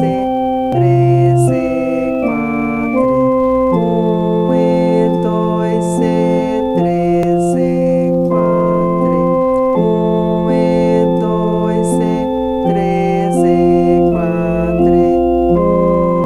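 Electronic keyboard playing a simple lesson piece in F major in four-four time: a melody over long held left-hand notes, each note sustained evenly without dying away.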